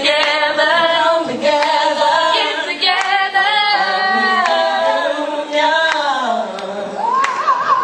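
A small group of young women singing together, ending on a held, wavering note near the end.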